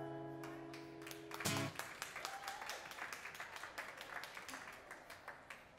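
Final chord on an acoustic guitar ringing out and cut off about a second and a half in, followed by light, scattered clapping from a small audience.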